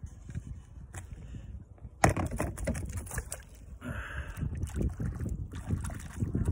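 Low, uneven rumble of wind on the microphone, with knocks and rustles of handling gear close by; a sharp knock about two seconds in is the loudest sound.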